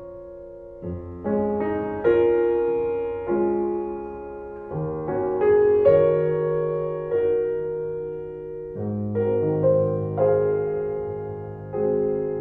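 Background piano music: slow sustained chords, each struck and left to ring and fade.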